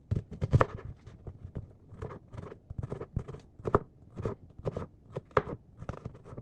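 Knife chopping food on a cutting board in a run of short, sharp strokes, about two to three a second.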